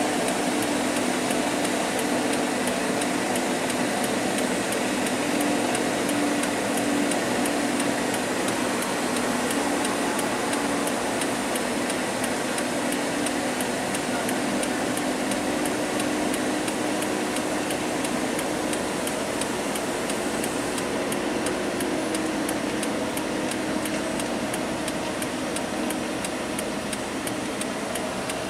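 Steady running noise of slow-moving vehicles on a downhill road: a low engine drone that wavers slightly in pitch, over tyre and road hiss, with a faint, even ticking throughout.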